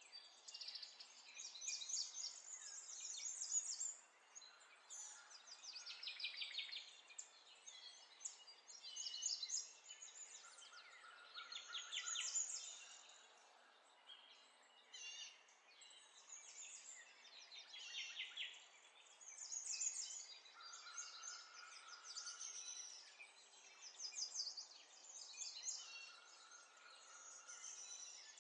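Birds chirping and trilling in quick runs of high repeated notes, with a few short steady whistles.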